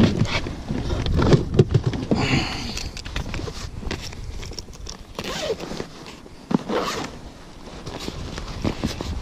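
Zipper on a fabric fish keep bag being pulled, among rustling and light knocks of the bag being handled.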